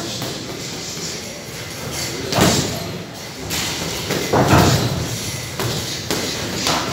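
Boxing gloves landing during sparring: scattered thuds a second or so apart, the loudest about two and a half and four and a half seconds in.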